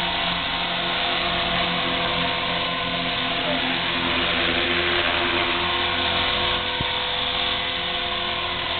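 A KDS 450 electric RC helicopter hovering: the steady high whine of its motor and gears over the buzz of the spinning main rotor.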